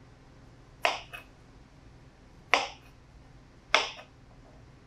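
Kitchen knife cutting through radishes onto a cutting board: three crisp chops, each followed by a lighter tap.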